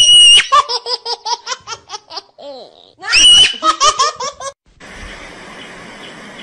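High-pitched human laughter, twice: each bout opens with a shrill squeal and runs into quick rhythmic giggles. From about five seconds in there is only a steady hiss.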